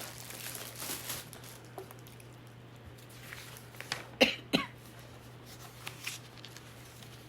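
A woman coughing twice in quick succession about four seconds in, from someone under treatment for a lung illness. Before that, wrapping paper rustles faintly and dies away.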